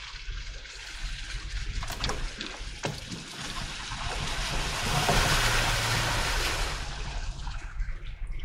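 Water splashing and rushing as an SUV drives through a deep puddle, swelling to its loudest about five seconds in and then easing, over the low hum of the engine. Two sharp knocks come two to three seconds in.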